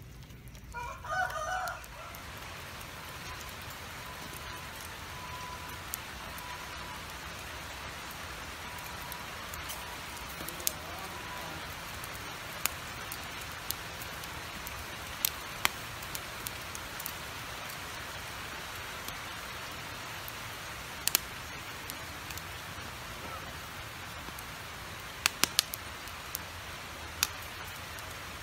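Pig's head grilling over hot charcoal, basted with oil and chili sauce: a steady sizzle with scattered sharp pops and crackles. A chicken calls briefly about a second in.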